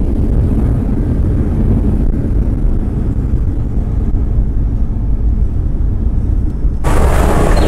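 Jet airliner cabin noise: a steady low rumble of engines and airflow. Near the end it switches abruptly to a louder, hissier rush of noise.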